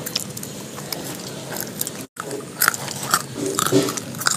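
Someone biting and chewing crisp fried french fries (finger chips): a run of small irregular crunching clicks, broken by a brief cut about halfway.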